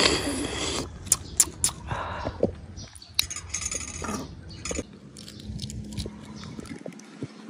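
A loud slurp as broth is sucked from a boiled fertilized duck egg, then chewing, with many small clicks and taps of eggshell and a metal spoon.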